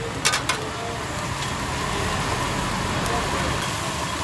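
Steady rushing of a stove burner's flame under a pan of egg curry that is bubbling at a simmer.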